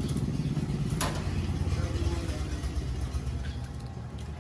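Steady low mechanical rumble, like a motor running, with two light clicks about a second apart.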